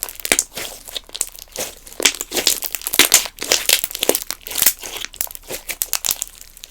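Slime being squished, pressed and stretched by hand, giving dense, irregular sticky crackles and small pops.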